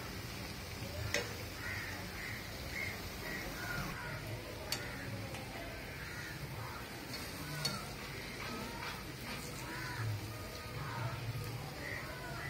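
Urad dal vadas deep-frying in hot oil, a steady sizzle, with three sharp clicks of a wire skimmer against the pan. Birds call repeatedly in the background.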